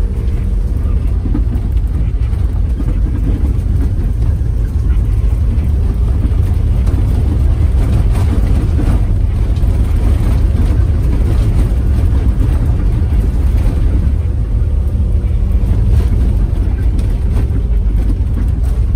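Cabin of a four-wheel-drive vehicle driving on a rough dirt track: a steady low engine and tyre rumble, with scattered rattles and knocks as it goes over bumps.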